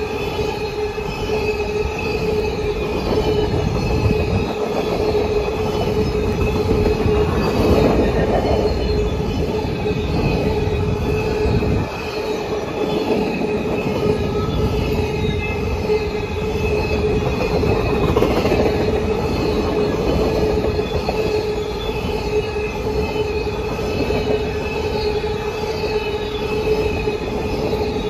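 Empty covered grain hopper cars rolling past on the rails with a continuous rumble of wheels. A steady high-pitched wheel squeal rings over the rumble.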